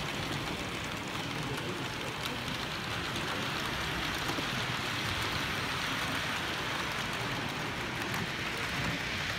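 Steady hissing ambience of an exhibition hall, with OO gauge model trains running on the layout; it swells a little around the middle.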